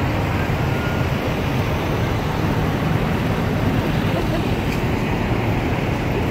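Steady low rumble of city street traffic and running engines.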